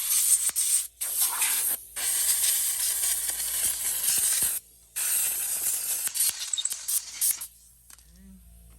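Compressed-air blow gun blasting air in several long hissing bursts with short breaks between them, blowing dirt off a nitro RC truggy. The air cuts off about three-quarters of the way through.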